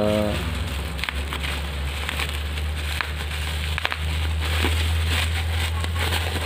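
Black plastic bubble wrap being crinkled and pulled apart by hand: a dense, continuous crackle with many small clicks, over a steady low hum.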